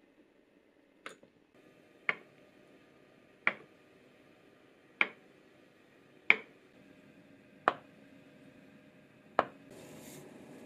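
Kitchen knife cutting through a block of tofu and knocking on a wooden cutting board, seven strokes about a second and a half apart. Near the end, a pot of broth simmering.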